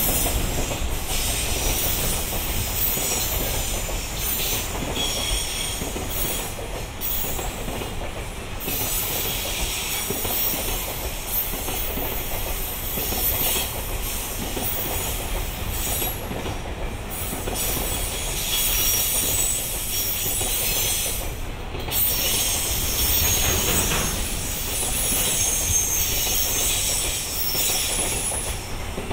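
Freight train rolling past, its steel wheels squealing in a high, wavering screech over a steady low rumble.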